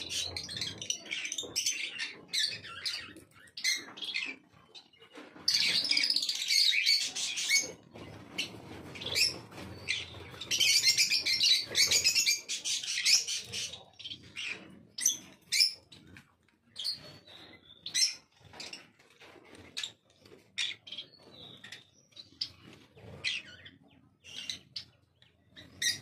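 Pineapple green-cheeked conures chirping and chattering. Two loud spells of dense, high chatter, each a couple of seconds long, come about six and about eleven seconds in. Short chirps and clicks are scattered in between.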